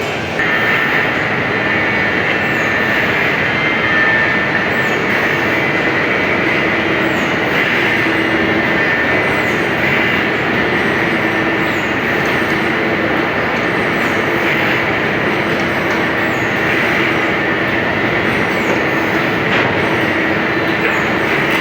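Band saw blade sharpening grinder running, its grinding wheel working the saw teeth in a steady grating noise with a high whine through it. It gets louder about half a second in.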